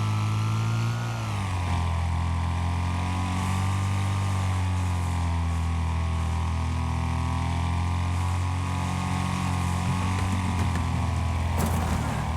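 Racing lawn mower engine running hard at steady high revs, its pitch dipping briefly about a second in and then holding level. A sharp knock near the end.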